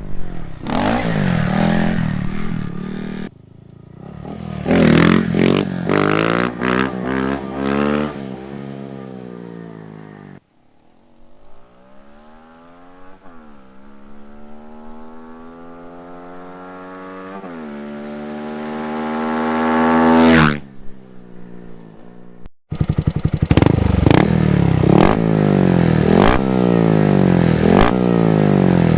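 Honda Monkey's single-cylinder engine through a Termignoni full exhaust, accelerating hard with the pitch rising and falling through the gears, across several cut-together passes. One long pass grows steadily louder and rises in pitch as the bike approaches, then drops away suddenly as it goes by about 20 seconds in. Near the end it is loud again with quick repeated rises in pitch.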